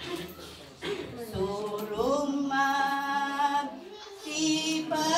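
A woman singing slowly into a microphone, unaccompanied: long held notes joined by rising slides, with a short break about a second in.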